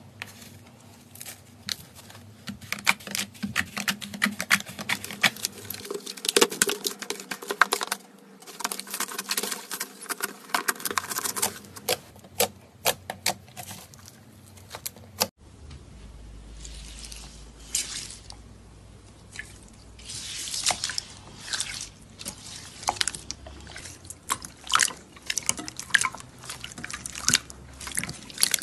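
Slime being squeezed, poked and stretched by hand: a running series of quick, wet sticky clicks and pops. The background changes abruptly about halfway through, and the clicking carries on.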